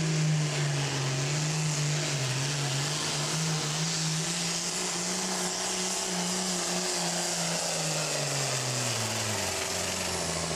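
Super farm pulling tractor's diesel engine at full throttle under heavy load, dragging the weight-transfer sled, with a steady engine note. Near the end the pitch falls as the pull runs out and the tractor comes to a stop.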